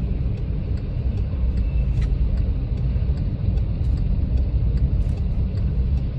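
A car driving, heard from inside the cabin: a steady low rumble of engine and road noise, with faint, evenly spaced light ticks over it.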